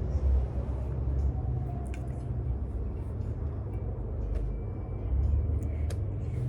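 Low, steady rumble of a suburban passenger train running, with a few faint clicks and rattles.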